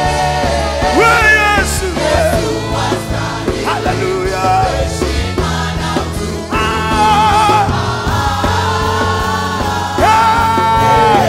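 Live church worship music: a band with steady bass accompaniment and voices singing long held, wavering notes.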